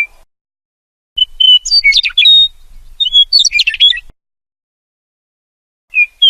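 Meadowlark singing: clear whistled notes running into quick tumbling notes in a song lasting about three seconds, starting about a second in. After a pause, another phrase begins near the end.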